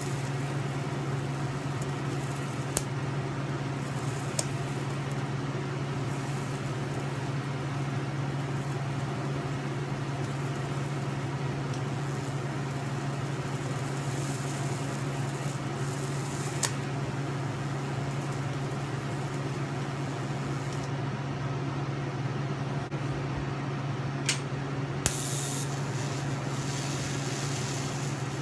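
Steady low machine hum over a faint hiss, broken by a few sharp clicks.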